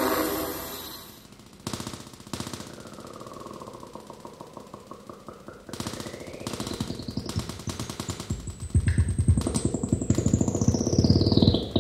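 Improvised electronic noise music played on amplified hard drives and modified electronics: rapid crackling clicks, with a thin whistling tone that glides slowly upward and begins to fall again near the end. A low rumble and denser buzzing grow louder through the second half.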